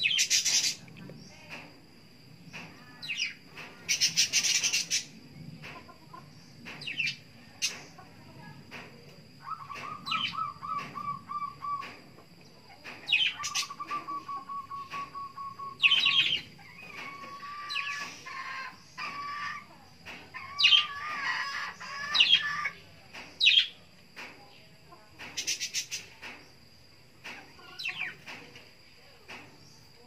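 Caged murai songbird giving short, sharp chirps, with several brief bursts of wing flapping as it shakes out its feathers after a bath. Lower, drawn-out warbling calls come through the middle, over a faint steady high whine.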